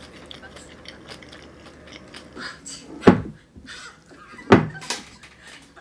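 Eating sounds: a metal spoon and fork lightly clicking and scraping on a glass plate of kimchi fried rice, with chewing. Two heavier, deep thumps come about three seconds in and again a second and a half later.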